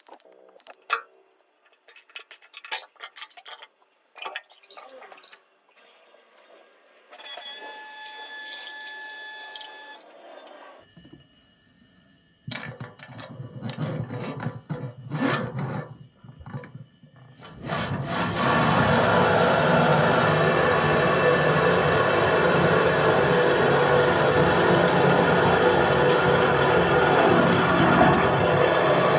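Scattered clicks and knocks, then from about two-thirds through a loud, steady rushing noise: a high-pressure drain washer jetting water through a washing-machine drain pipe.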